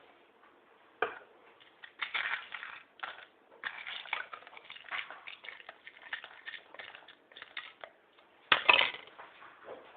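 Small balls of crumpled foil crinkling and rattling as they are handled and tipped into a plastic bottle cap, with a sharper knock about a second in and a louder one with a burst of crackling near the end.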